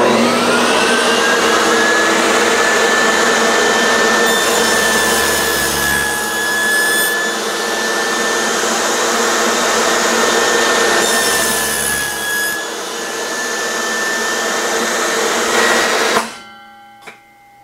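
Benchtop table saw starting up with a rising whine, then running steadily while small wooden blocks are cross-cut, its pitch dipping briefly under load twice. Near the end the sound stops abruptly: the flesh-sensing emergency blade brake has tripped with a hand too close to the blade, stopping it in about an eighth of a second.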